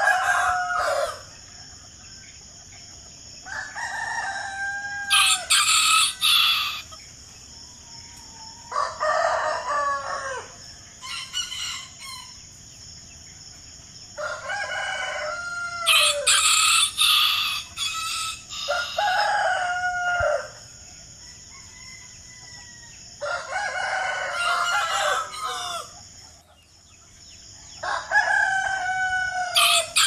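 A rooster crowing repeatedly, about seven crows in a row, each a few seconds apart, over a steady high-pitched buzz in the background.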